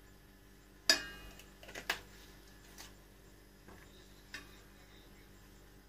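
A few sharp clinks and taps from a metal spoon against a stainless steel mixing bowl. The loudest, about a second in, rings briefly, a second follows a second later, then fainter taps.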